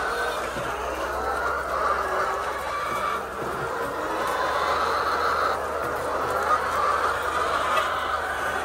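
A flock of layer chickens clucking and calling together, a continuous chatter of many overlapping birds.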